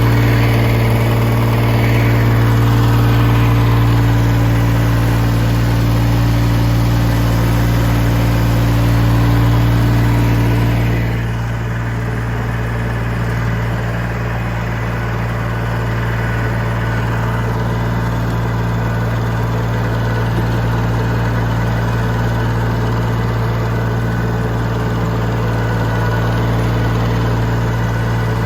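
Massey Ferguson tractor engine running steadily on a test run of its newly fitted radiator; about eleven seconds in it settles to a slightly lower, quieter run.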